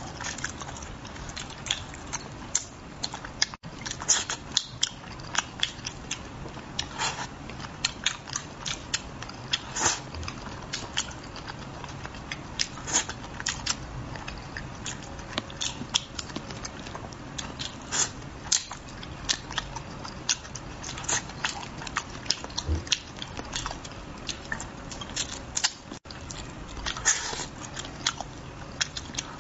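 A person chewing and lip-smacking while eating red-braised crucian carp: an irregular run of wet mouth clicks and smacks.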